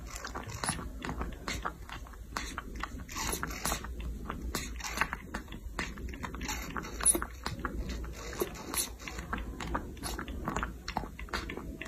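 Baby macaque sucking at a feeding bottle's teat: an irregular run of quick wet clicks and smacks, several a second.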